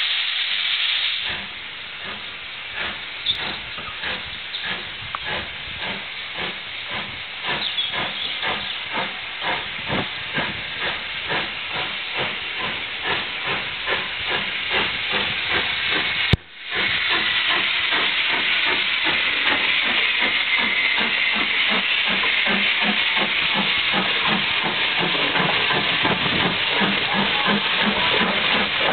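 Robert Stephenson & Hawthorns 0-6-0 tank steam locomotive pulling away, its exhaust chuffs starting slow and quickening as it gathers speed, over a steady hiss of steam. About halfway through, the sound cuts out for an instant and comes back louder, with the hiss stronger and the beats faster.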